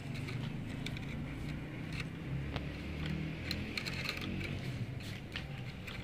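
Wheels of a diecast Toyota Coaster model bus rolling over rough, gritty concrete as it is pushed by hand: a steady low rumble with scattered small clicks and crunches of grit.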